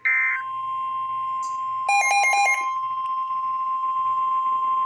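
Emergency Alert System tones: a short warbling burst of SAME digital data at the very start, then the steady single-pitch NOAA Weather Radio attention tone (1050 Hz) that heralds a new warning. About two seconds in, a brief string of rapid beeps sounds over the tone.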